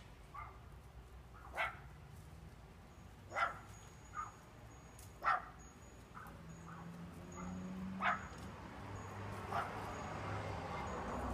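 Short, sharp animal calls, about six of them spaced a second or two apart.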